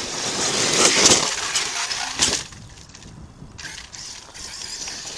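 ARRMA Kraton 8S RC monster truck crashing and tumbling over dirt and rocks, a loud clatter of knocks and scraping for about two seconds, then quieter rolling noise.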